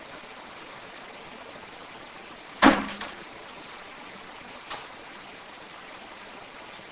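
Steady hiss of a quiet room recording, broken by one loud, sudden knock a little under three seconds in and a faint click about two seconds later.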